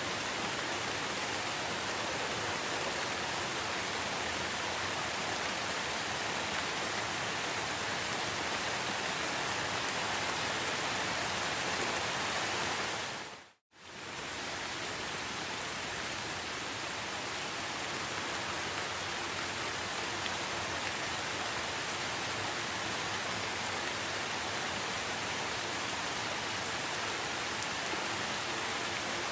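Steady rain falling, an even hiss, that fades out to silence about halfway through and fades straight back in.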